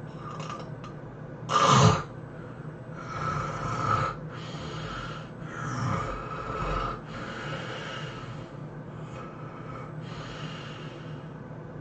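A person snoring in their sleep: one short, loud snort about a second and a half in, then slower, softer snoring breaths every two to three seconds, over a steady low hum.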